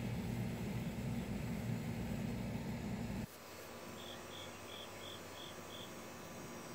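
A steady low rumble cuts off suddenly about three seconds in. In the quieter background that follows, a cricket chirps six times, about three short high chirps a second.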